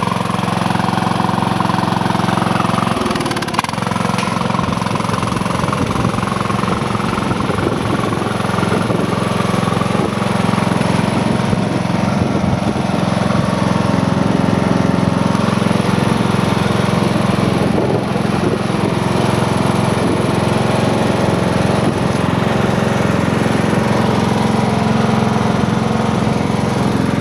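Troy-Bilt 17 HP riding lawn mower's engine running steadily, its note shifting about three seconds in.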